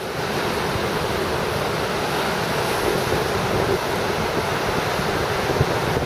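Surf breaking and washing over shore rocks in a steady rush of water, with wind buffeting the microphone.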